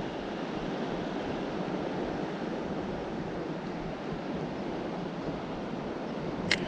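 Steady rush of sea surf and wind, with one sharp click near the end.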